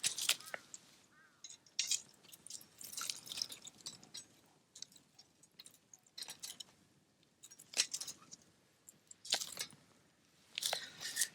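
Wood fire crackling, with irregular sharp snaps and pops from the burning firewood and quieter stretches between them.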